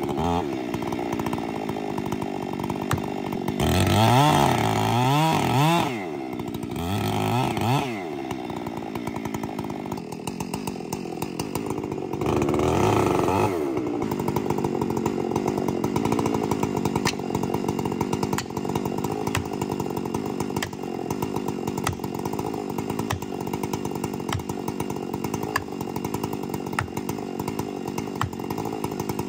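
Ported Husqvarna 592 chainsaw (92 cc) revving up and down a few times over the first eight seconds, then held at steady full throttle cutting through a fir stump.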